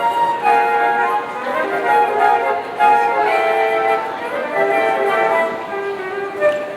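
Instrumental holiday music: a melody of held notes moving from pitch to pitch over a steady accompaniment.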